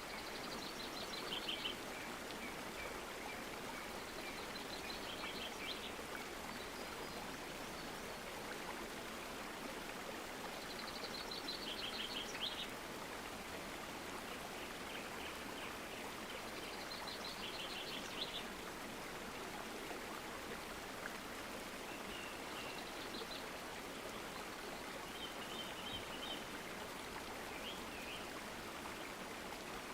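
A stream flows with a steady rush while a bird sings short trilled phrases that come back about every six seconds, with a few softer chirps between.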